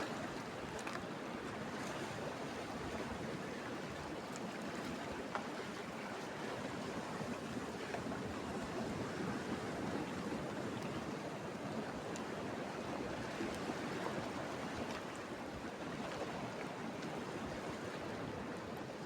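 Sea surf washing on the shore, a steady rushing with a few faint ticks, along with some wind.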